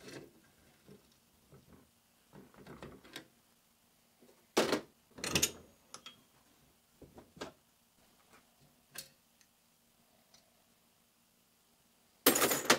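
Scattered metal knocks, clicks and clunks as the aluminium crankcase of a stripped Minsk MMVZ 3.232 two-stroke motorcycle engine is handled and turned over on a repair stand. The two loudest knocks come about five seconds in, and another comes just before the end.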